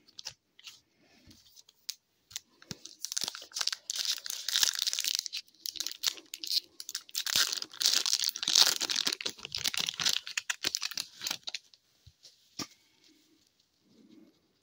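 Foil hockey card pack being torn open and crinkled by hand: a dense crackling rustle that starts about three seconds in and lasts roughly eight seconds, with a few light clicks before and after.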